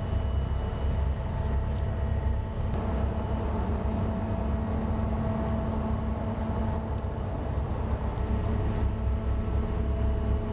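Steady low mechanical drone with several constant hum tones, the running engines and machinery of a large cargo ship in the canal locks.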